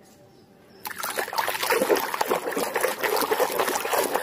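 Hand swishing and scrubbing in a plastic basin of muddy water, the water sloshing and splashing continuously, starting about a second in after a short quiet moment.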